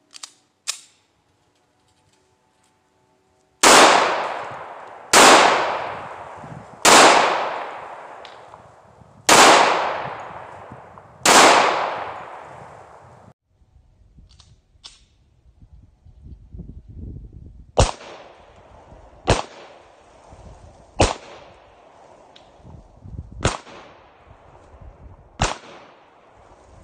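Springfield Armory XD .45 ACP semi-automatic pistol firing ten shots: five loud shots about 1.5 to 2.5 seconds apart, each trailing off in a long echo, then after a pause five more, fainter and sharper.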